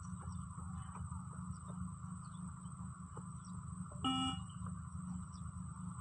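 A single short electronic beep from a beep-test (20-metre shuttle run) recording about four seconds in, the signal marking the end of a shuttle. Between beeps there is a steady low rumble.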